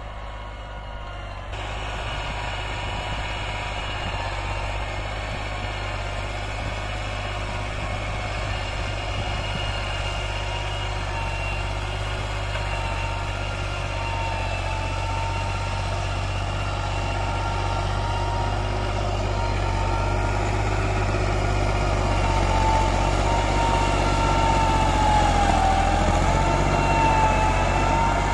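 Massey Ferguson 260 tractor's turbo diesel engine running steadily under load while it pulls a five-tine chisel plough through the soil, with a whine that wavers in pitch over the drone. It grows slowly louder as the tractor comes closer.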